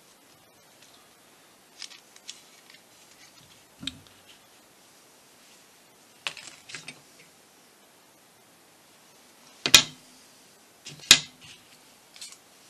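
Scattered light taps and clicks of small tools and parts handled on a workbench, with two sharper clacks about a second apart near the end.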